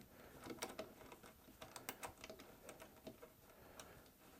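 Faint, irregular clicks of small metal rack hardware (rack screws and cage nuts) being handled and taken out of the rack rails.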